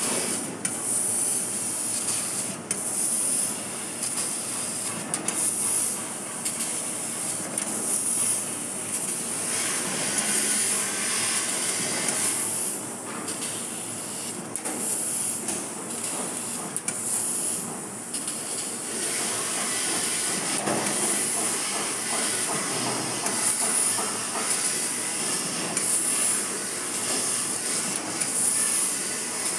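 2 kW CNC laser cutter cutting 3 mm mild steel sheet: a steady hiss of the cut and gas jet at the cutting head, with occasional sharp clicks.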